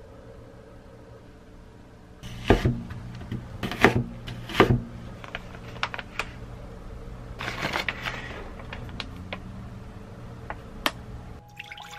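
Stiff plastic pouch of dried kelp being handled and opened: sharp crackles and clicks, the loudest three close together a couple of seconds in, then softer crinkling and a last click near the end.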